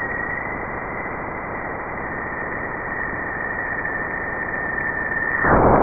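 Sonified 'sound of Jupiter' space recording: a steady hiss with a high, steady whistling tone over it. About five and a half seconds in, the tone stops and the hiss gets louder.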